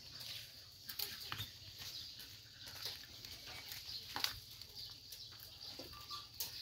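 Young goats tearing leaves off a leafy branch and chewing them: leaves rustling and stems snapping in irregular crackles and clicks, over a steady high hiss.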